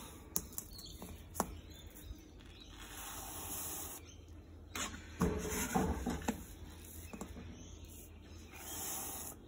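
A plastic measuring cup scooping granulated sugar from a glass jar and tipping it into a pot of hot tea, with a few light knocks and soft rustling hiss as the sugar goes in.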